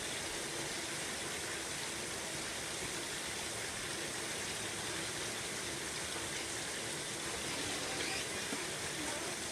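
Steady rain falling, an even continuous hiss, with a faint small sound about eight seconds in.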